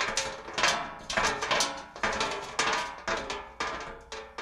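Metal clanging and crashing: a run of sharp metallic hits about twice a second, each ringing on briefly, dying away near the end.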